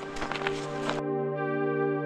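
Ambient synthesizer music with long held chords. For the first second, boots crunching on snow are heard under it; then the outdoor sound cuts off suddenly and only the music continues.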